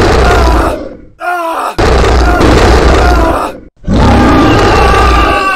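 Monster growling and roaring in three long, loud bursts with a deep rumble, broken by short pauses about a second in and shortly before the fourth second. A higher held cry rides over the last burst.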